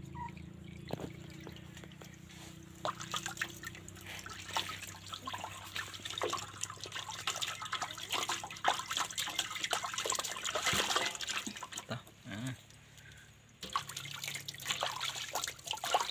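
Water splashing and dripping as a dog is bathed, with many small irregular splashes and wet rubbing sounds; it goes briefly quieter about thirteen seconds in.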